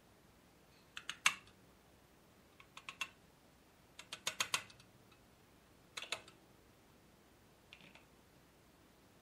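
Hammer tapping a steel pin punch held in a scale's mechanism, sharp metallic taps in five short groups of two to five, the longest run about four seconds in and the loudest single tap just after one second. The blows drive a pin out to dismantle the mechanism.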